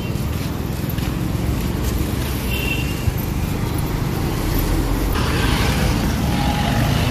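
Street traffic noise: a steady rumble of passing cars and their engines, with a short high beep about two and a half seconds in. The noise grows louder from about five seconds in as a vehicle draws near.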